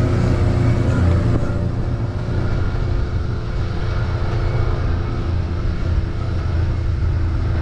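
Side-by-side utility vehicle's engine running steadily as it rolls along a dirt trail, a low drone with a steady hum.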